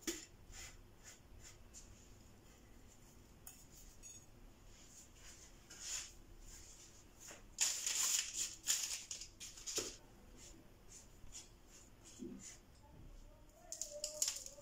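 Faint scattered rustles and light taps, with a louder rustling stretch about halfway through, from hands pressing dough rounds into a plate of mixed seeds and setting them on parchment paper.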